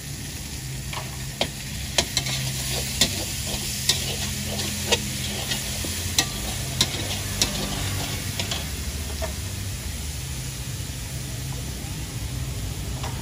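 Greens stir-frying in a hot wok with a steady sizzle, while a metal spatula scrapes and clanks against the metal wok, with sharp strikes every half-second to a second that thin out after about eight seconds. A low steady rumble runs underneath.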